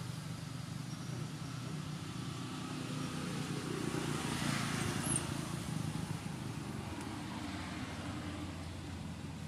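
Steady low rumble of engine traffic close by. A vehicle passes and is loudest about four to five seconds in.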